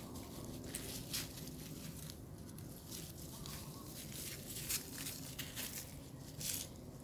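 Dry leaf litter rustling and crackling in short irregular bursts as young macaques scuffle and wrestle on the ground.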